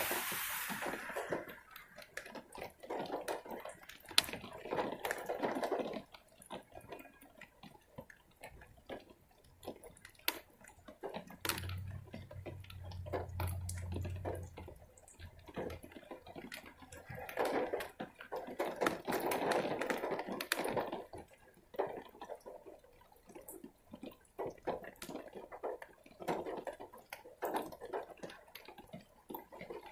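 Heavy rain with irregular drips and splashes close by, and louder water noise swelling twice. A brief low hum comes in around the middle.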